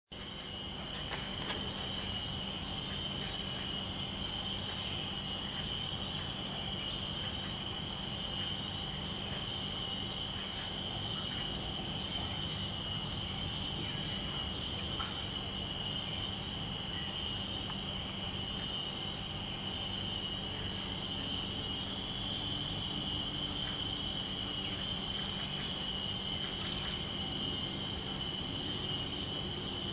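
Steady chorus of insects: an unbroken high-pitched buzzing with runs of short, rapid chirps over it.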